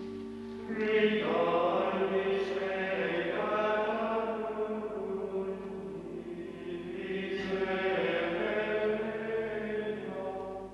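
Choir chanting slowly, voices holding long notes in a liturgical chant; the singing swells about a second in and breaks off suddenly at the end.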